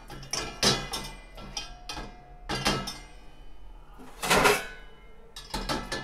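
Stainless steel plates clanking and ringing against one another and the dishwasher's wire rack as they are set upright one by one, about four clanks with the loudest a little past the middle.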